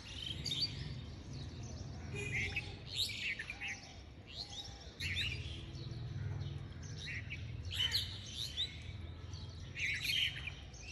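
Small birds chirping: short, high twittering calls that come again every second or so.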